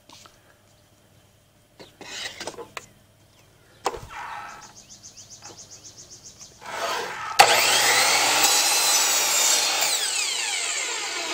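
A few knocks as a plastic composite trim board is set on a Kobalt 10-inch compound miter saw. Then, about seven seconds in, the saw's motor starts with a sharp onset and the blade cuts through the board, loud and steady, its pitch falling near the end.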